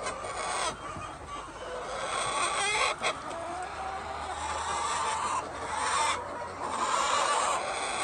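A flock of white laying hens clucking and calling, with several drawn-out rising calls overlapping. A brief sharp click comes about three seconds in.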